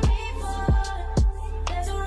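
Background music with a deep, sustained bass and three heavy kick-drum hits under held melodic notes.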